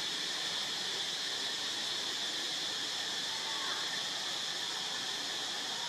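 Steady, high-pitched drone of forest insects, even and unbroken.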